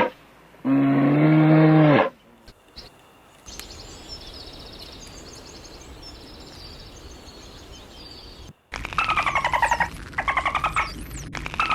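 A cow mooing once, about a second long, near the start. Faint bird chirps follow over a steady outdoor hiss. After an abrupt cut about two-thirds through come loud bursts of rapid pulsed animal calls, each burst about a second long.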